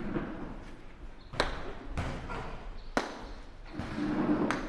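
Sharp smacks of boxing punches landing, three of them about 1.4, 2 and 3 seconds in, with gloves striking headguard and body.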